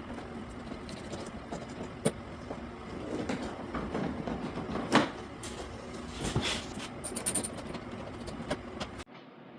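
Plastic body cover on a snowmobile being worked loose from its clips: scattered clicks, knocks and rattling handling noise, with sharper knocks about two seconds and five seconds in. The sound cuts off suddenly near the end.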